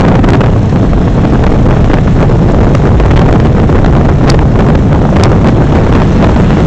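Heavy wind buffeting on a hand-held camera's microphone while riding on a motorcycle at road speed, with engine and road noise underneath.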